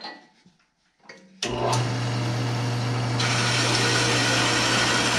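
A few light clunks, then a JET metal-cutting band saw's motor switches on about a second and a half in and runs with a steady hum under a dense grinding noise. About three seconds in the noise grows brighter and harsher, as the blade cuts into the steel bed-frame angle iron.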